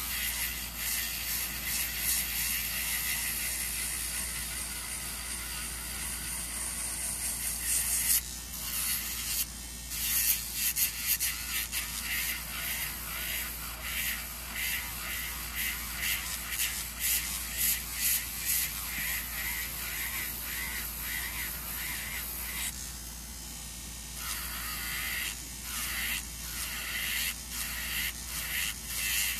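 Sanding band on an electric nail drill grinding down an acrylic nail: a rough hiss that comes and goes in quick passes, with two short pauses, about 8 and 23 seconds in.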